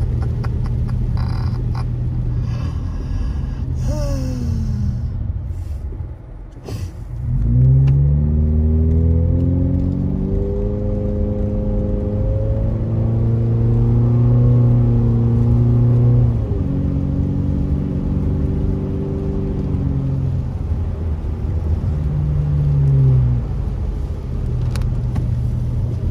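Car engine and road rumble heard from inside the cabin on a wet road. The engine note rises as the car accelerates about a third of the way in, holds steady, drops back a little past halfway, and rises and falls briefly again near the end, with a few brief clicks.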